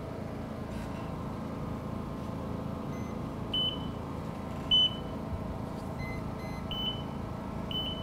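Electrofusion processor and barcode scanner giving about four short, high electronic beeps as the fitting's barcode is read for its fusion size, time and voltage. The second beep is the loudest. A steady low hum runs underneath.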